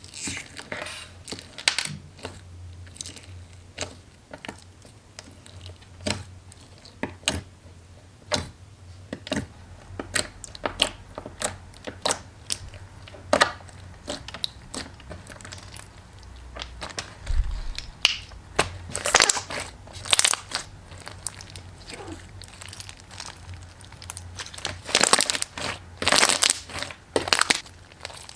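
Irregular crisp crunches and crackles, a few a second, of a soft crafted material being crushed close to the microphone, with louder, denser bursts of crunching near the end.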